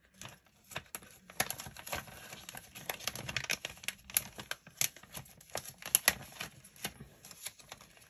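Clear acrylic stamps and their plastic packet being handled on a craft table: irregular light taps and clicks, with a short plastic rustle about three seconds in.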